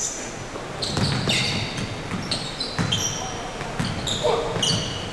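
Basketball bouncing on a hardwood gym floor, a few sharp thuds roughly a second apart, with short high-pitched sneaker squeaks from players cutting on the court, echoing in a large hall.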